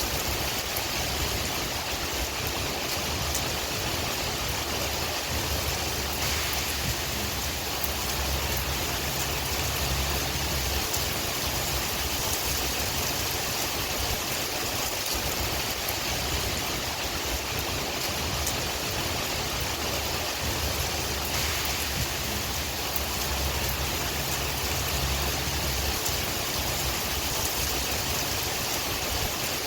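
Steady rain with wind: a constant even hiss with scattered small drop ticks, and a low wind rumble that swells twice and falls back.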